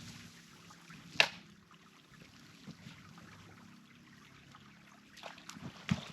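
Water trickling and sloshing as someone wades through shallow, icy floodwater. There is one sharp, loud click about a second in, and a few more splashy knocks near the end.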